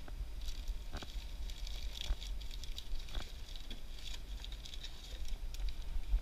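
Plastic snack packets crinkling and rustling, with light clicks about once a second, as a snack machine is stocked by hand.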